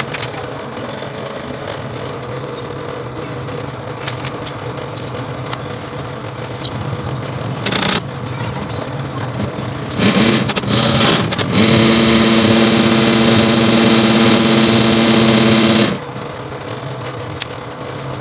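Belt-driven coil-winding machine running, winding copper wire onto a transformer bobbin, with a steady mechanical whirr. A short loud rustle comes about eight seconds in, and from about ten seconds in a louder steady whine joins for some five seconds, then stops abruptly.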